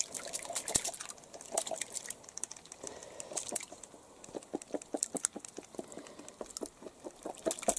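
Quick small splashes and drips at the surface of a water tank where crucian carp are taking boiled buckwheat scattered on the water. Irregular wet clicks over a light watery hiss, coming faster about five seconds in.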